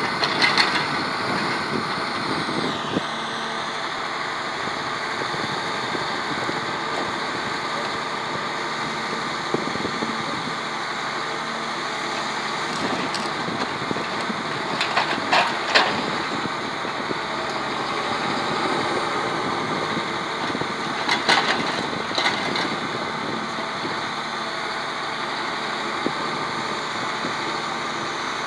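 Komatsu 895 forwarder's diesel engine running steadily while its hydraulic crane loads logs, with a few sharp knocks and clatters of wood, loudest about fifteen and twenty-one seconds in.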